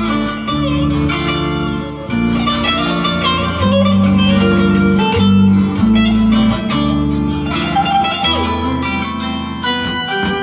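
Instrumental music on plucked string instruments, bağlama (saz) among them: a quick run of plucked notes over low bass notes that change about once a second.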